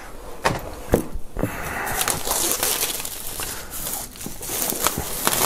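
Plastic shrink wrap being peeled off a cardboard box: a few sharp crackles at first, then denser crinkling and rustling of the film.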